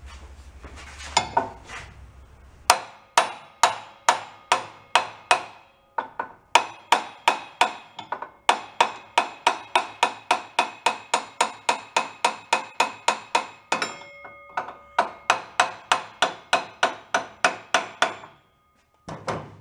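Hammer blows on a flat metal drift bar, driving a snug-fitting hub onto a steel shaft. There are steady, ringing metal-on-metal strikes about two or three a second, in a few runs with short pauses between them.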